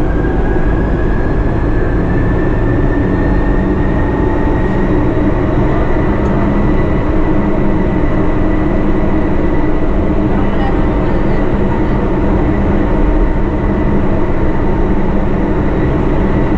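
MRT-3 light-rail train running: a steady rumble of wheels on track, with a motor whine that rises in pitch over the first few seconds as the train gathers speed, then holds steady.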